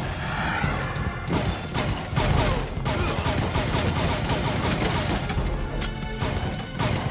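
Action-film gunfight mix: rapid handgun fire with bullets smashing into a car and its glass shattering, over a loud dramatic music score.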